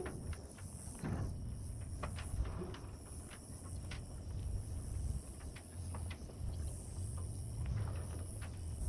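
Insects buzzing steadily, high-pitched, with scattered light clicks and rustles and a low rumble underneath.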